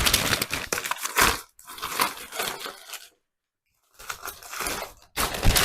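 Packaging being unwrapped and handled: four rough bursts of crinkling and tearing, broken by short pauses.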